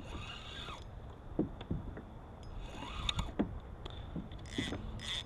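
Water lapping and splashing against a plastic kayak hull, with scattered small clicks and scrapes of fishing tackle and a few short noisy bursts near the end.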